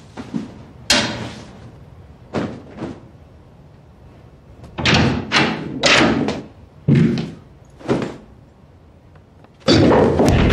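A scuffle: a string of heavy thuds and bangs as a man is shoved about and a coat stand is knocked, most of them bunched together in the middle. Loud music comes in near the end.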